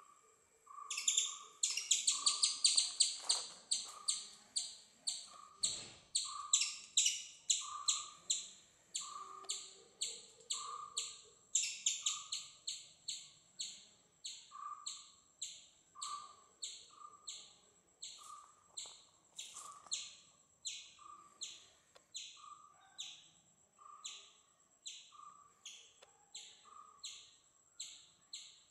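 Rhythmic animal chirping: a sharp high chirp repeated about twice a second over a steady lower pulsing note. It comes in loudest and fastest about a second in, surges again near the middle, then eases to a steadier pace.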